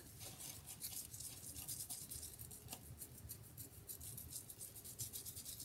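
Fingers scrubbing aloe vera gel into the scalp through the hair: a faint, rapid run of scratchy rubbing strokes.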